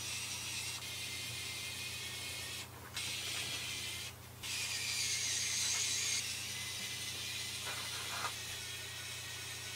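HOTO cordless electric precision screwdriver whirring as it drives small screws back in. It stops briefly twice, about three and four seconds in, then runs on, a little louder for a moment after the second stop.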